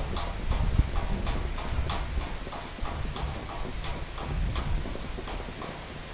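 Summer thunderstorm rain, with heavy drops knocking irregularly on a hard surface, about two or three knocks a second, over a steady wash of rain and a low rumble.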